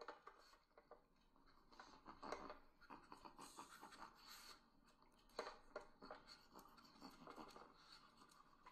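Near silence with faint, irregular scratching and rustling, a few small clicks louder than the rest.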